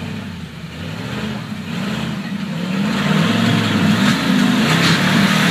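Rock buggy's engine revving hard under load as it climbs a rocky ledge. The revs rise and fall repeatedly, and it grows louder about halfway through.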